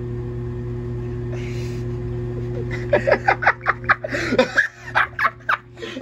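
Front-loading washing machine on its high-speed spin cycle, the drum spinning with a steady hum. About three seconds in, a person breaks into quick bursts of laughter over it.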